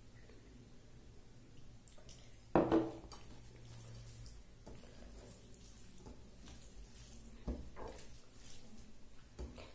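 Masoor dal poured from a small bowl over rice, then fingers mixing the wet rice on the plate with faint squishy handling sounds. The loudest sound is a sharp knock about two and a half seconds in, the bowl being set down on the table, with a couple of smaller taps later.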